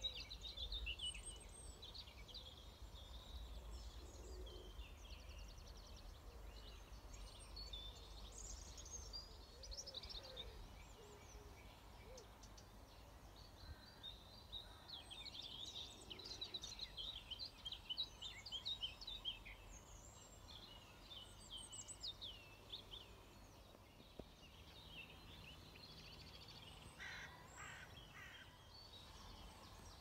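Faint songbirds singing, many short chirps and trills overlapping, busiest in two stretches, with a lower call near the end; a steady low wind rumble underneath.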